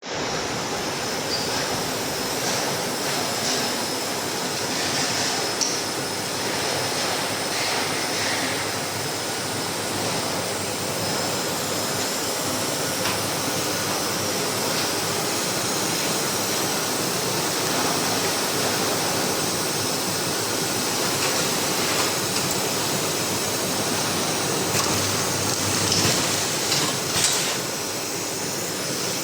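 Automatic kitchen towel roll packing and labelling machine running: a steady mechanical noise with occasional clicks and knocks.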